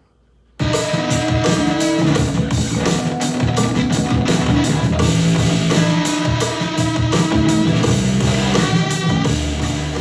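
Instrumental music with a steady drum beat and guitar, played back through a portable Bluetooth speaker and picked up in the room. It starts about half a second in after a brief silence and fades away near the end.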